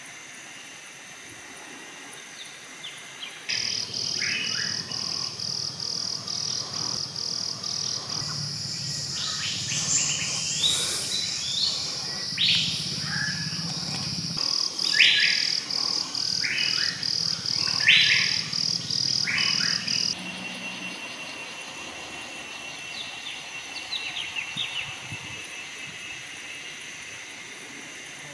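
Tropical forest ambience: an insect buzzing in a steady pulse, about three pulses a second, with birds chirping over it. It starts a few seconds in and cuts out about twenty seconds in, leaving only faint bird chirps.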